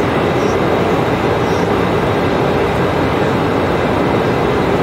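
Steady cabin noise of an Embraer E190 airliner in cruise: the hiss of the airflow and the drone of its GE CF34-10E turbofans heard from a window seat, even and unchanging.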